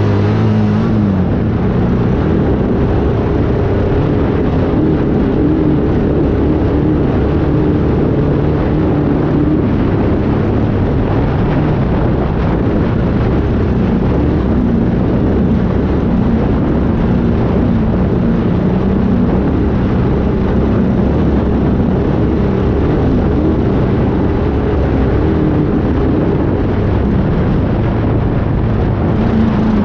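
Off-road race vehicle's engine running hard and steady, its pitch wavering a little, over a dense rushing noise.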